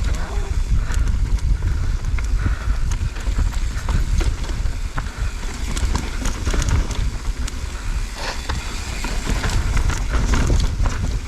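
Mountain bike ridden down a rough trail: steady low rumble of wind buffeting on a chin-mounted GoPro's microphone, with frequent clicks and rattles from the bike over rocks and roots.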